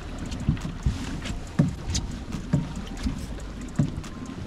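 River water slapping against a boat's hull in a string of irregular low thumps, over a steady low hum.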